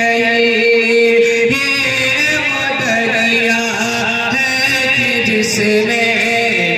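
A man's solo voice singing an unaccompanied devotional recitation into a handheld microphone. He holds one long steady note at the start, then moves into ornamented, wavering phrases.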